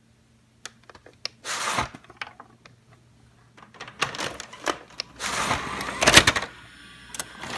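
Scattered clicks and knocks with two short rushes of noise, the louder one a little after five seconds in, over a faint low hum at the start.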